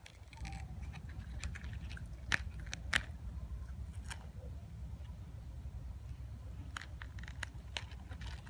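Fingers handling and peeling back a stiff banana leaf: scattered crisp crackles and ticks from the leaf, two sharper ones about two and three seconds in. A low steady rumble runs underneath.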